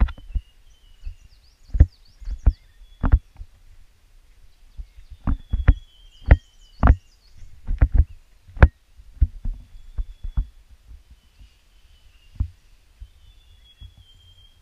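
Footsteps thudding on a dirt forest trail at an uneven walking pace, dying away about two-thirds of the way through as the walker stops. Faint bird calls and chirps sound in the background.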